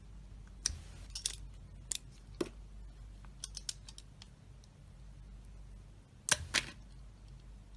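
Knife cutting into a dry bar of soap: short, crisp cuts and scrapes at irregular intervals, the loudest two close together near the end.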